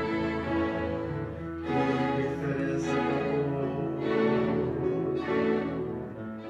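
Slow instrumental background music of bowed strings, with long held notes that change every second or two.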